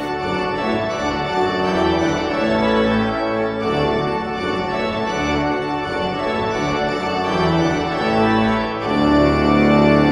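Church pipe organ playing slow, sustained chords that change about once a second, growing fuller and louder about nine seconds in as higher ranks sound.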